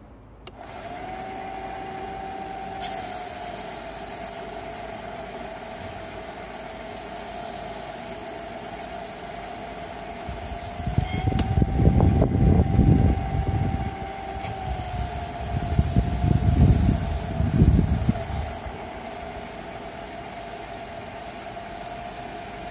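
Lapidary flat-lap motor starting about half a second in and running steadily with a whine, spinning a wet diamond polishing pad; water hissing on the pad joins a few seconds later. Two stretches of louder low rumbling come near the middle, while the whine shifts slightly higher.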